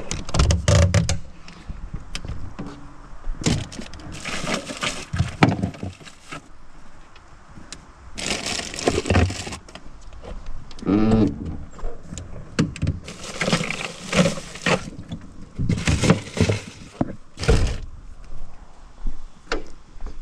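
Tools and gear clanking, rattling and scraping in a work van's storage compartments as they are rummaged through, with a compartment door latch worked at the start. The knocks come in uneven bursts.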